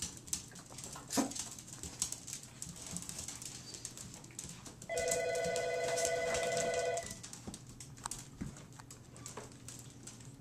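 Electronic telephone ringer warbling for about two seconds in the middle, a rapid trill between two tones. Around it, scattered light clicks and scuffles.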